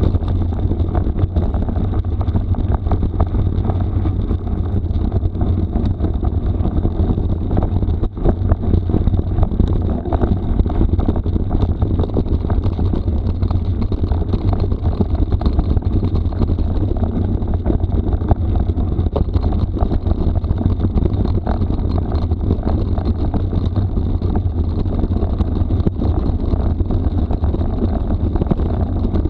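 Mountain bike riding over a rough gravel forest road: wind buffeting the microphone with a heavy steady rumble, and constant small rattles and clicks from the tyres and bike on loose stones.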